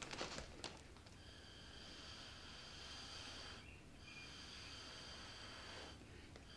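Faint breath blown through a drinking straw onto wet acrylic paint: two long steady hissing blows of about two and a half seconds each, with a brief pause between them. The air spreads the wet paint on the canvas.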